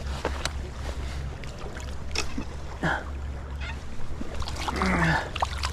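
Stream water splashing and trickling, with scattered sharp clicks and knocks, as a hooked rainbow trout is brought in by hand. A steady low rumble of wind on the microphone runs underneath.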